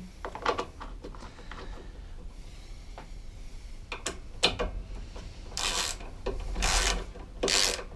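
Hand-work rubbing and scraping on a grass-caked mower fairing piece: a few light clicks of handling, then three rough scraping strokes in the last two and a half seconds, about a second apart.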